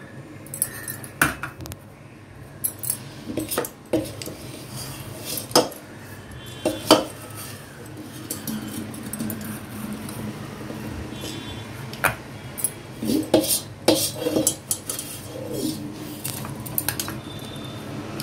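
Perforated stainless steel ladle scraping and knocking against steel vessels as thick, sticky dough is scooped and pressed into a tiffin box: irregular clinks, taps and scrapes, some in quick clusters.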